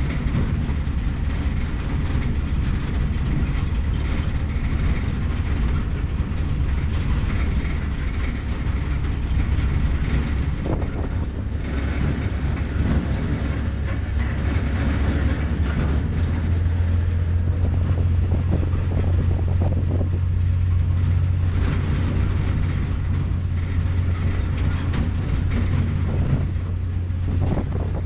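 1938 Ford rat rod truck driving, heard from inside the cab: a steady engine drone with road and wind noise. The low engine note steps up in pitch about halfway through.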